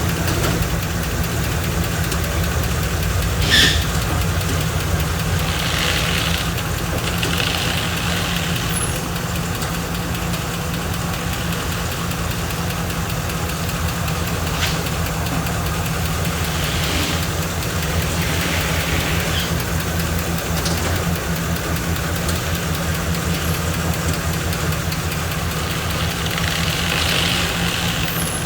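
1966 Chevrolet Caprice engine idling steadily, with a sharp click about three and a half seconds in and a few short, soft hisses.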